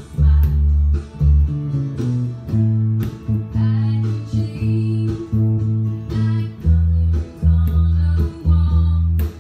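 Fender Precision electric bass playing a line of plucked notes in the key of A, about two notes a second. The line moves up about two seconds in and drops back to the lower notes near the end.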